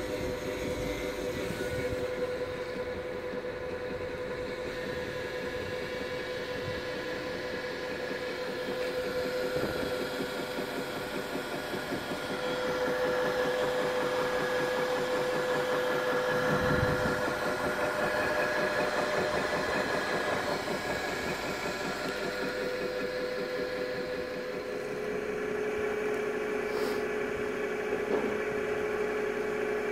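OMG MB225 twin-shaft paddle mixer running, a steady mechanical hum with whining tones from its drive, a little louder in the middle and dropping slightly in pitch near the end.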